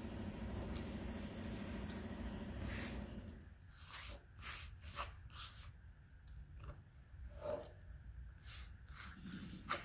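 Steady machine drone from a neighbour's driveway work for the first three seconds, which then stops. After that, short scratchy strokes and clicks of a craft knife cutting through suede leather on a cutting mat.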